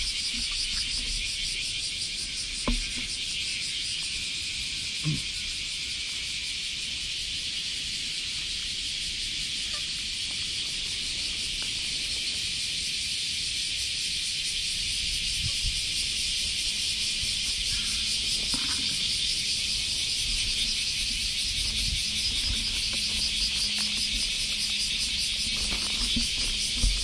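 A dense chorus of cicadas buzzing steadily in summer heat, with a fine pulsing texture. A couple of faint knocks come a few seconds in.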